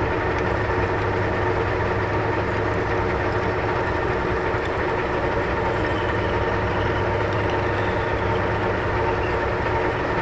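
Metal lathe running while a twist drill in the tailstock chuck is fed into the spinning workpiece, drilling a deep bore: a steady machine hum with several constant whining tones.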